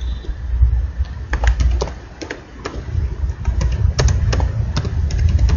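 Computer keyboard keys clicking in irregular keystrokes as text is typed, starting about a second in, over a steady low rumble.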